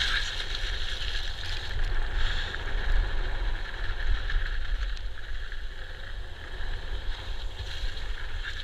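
Wind rushing over an action camera's microphone, with the rumble of an electric mountain bike's tyres and the rattle of its frame on a rough dirt trail at speed.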